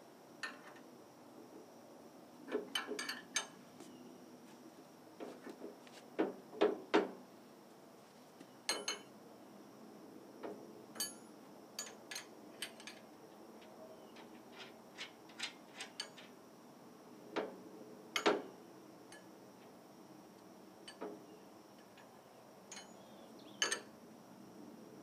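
Wrenches and bolts clinking and tapping against the steel frame of a three-bottom plow as it is being bolted together: irregular sharp metallic clicks, some in quick clusters, the louder ones ringing briefly.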